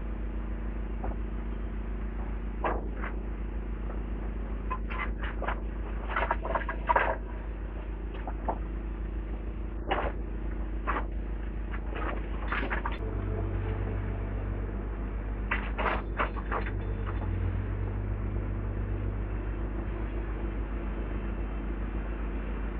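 Excavator engine running steadily, with scattered short knocks and cracks as the machine pulls at a bush. About halfway through, a deeper engine hum joins in.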